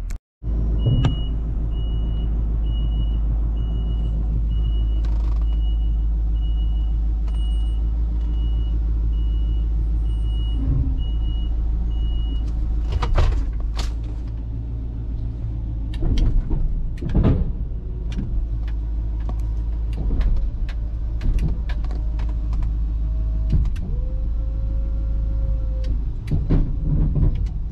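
Pickup truck engine running, heard from inside the cab, as the truck is driven and parked. A high beep repeats steadily for about the first eleven seconds, and several knocks and clunks come later on.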